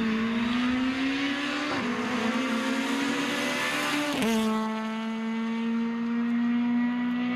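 Opel Adam R2 rally car's 1.6-litre four-cylinder engine accelerating hard past, rising in pitch with two quick upshifts about two and four seconds in, then holding a steady note as it pulls away.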